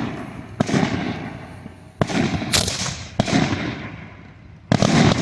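Lengths of pyrotechnic quickmatch fuse going off one after another. There are four sharp cracks, each followed by a rushing hiss of flame and gas that dies away over about a second.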